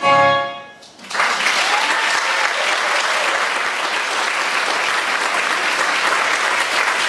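The last note of a sung musical number fades out in the first second. About a second in, a theatre audience breaks into steady applause.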